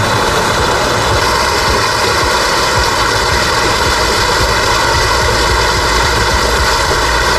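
Small cascade in a brook pouring into a pool: a steady, even rush of water with no break.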